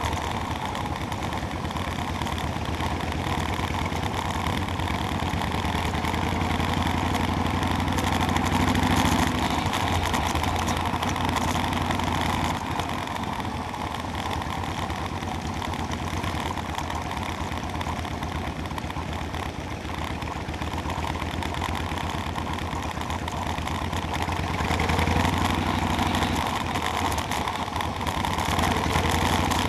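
Motorcycle engine running steadily at low, even revs, swelling slightly about a third of the way in and again near the end.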